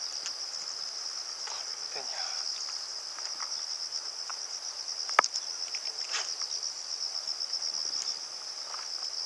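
Insects trilling steadily at a high pitch with a fast, even pulse. A single sharp click comes about five seconds in.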